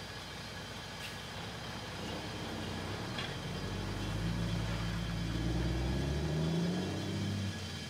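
Heavy tanker truck's diesel engine pulling away and accelerating: its note climbs and grows louder, then falls off sharply near the end.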